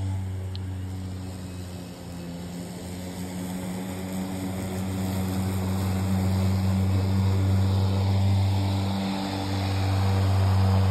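EGO 21-inch cordless electric lawnmower running while cutting grass: a steady, even hum with no engine chatter, growing louder in the second half.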